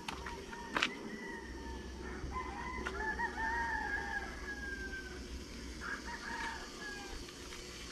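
A rooster crowing: one long crow a little over a second in and a shorter crow about six seconds in. A sharp knock just under a second in.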